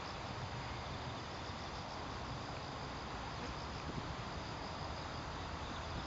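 Insects chirping steadily, a high continuous trill over an even outdoor hiss.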